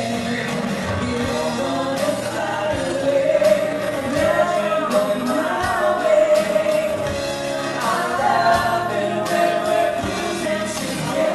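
Live acoustic band music: a woman singing the lead into a microphone over strummed acoustic guitar and drums, in a reverberant room.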